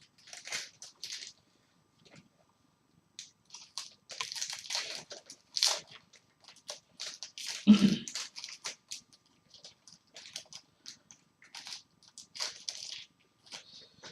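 Trading card packs being opened and handled: irregular crinkling and crackling of foil wrappers and cards being slid and shuffled. One louder knock comes about eight seconds in.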